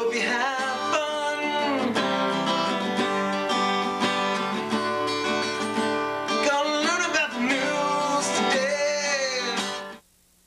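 Country-style music with strummed acoustic guitar and a singing voice, which cuts off suddenly near the end.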